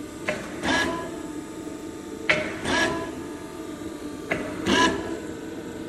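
Heinrich Frey Jobber-50 vacuum filling machine running and cycling about every two seconds. Each cycle is a sharp click followed by a short whirring burst, three cycles in all, over a steady motor hum.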